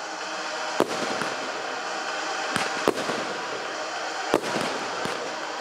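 Firecrackers going off, about five or six sharp bangs spread irregularly over the steady noise of a crowd.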